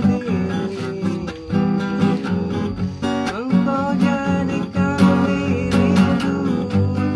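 Acoustic guitar strummed in a steady accompaniment, with a man singing along.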